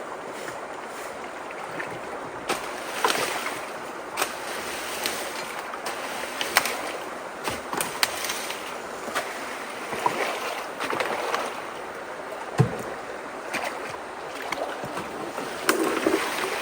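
Steady rush of flowing water, broken by frequent irregular sharp clicks and knocks, one heavier low thump about three-quarters of the way through.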